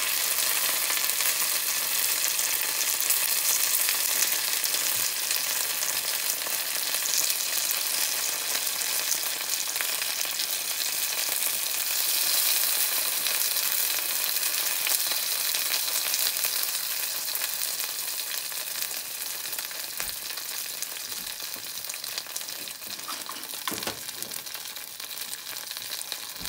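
Green pepper pieces frying in hot oil in a frying pan: a steady sizzling hiss that slowly eases off over the last several seconds.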